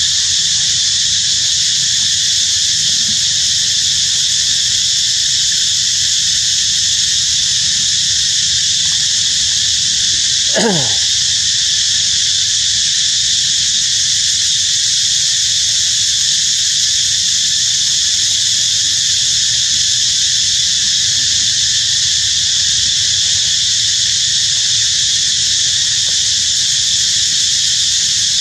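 Loud, steady insect chorus droning in several high bands, with one short call about ten seconds in that falls quickly in pitch.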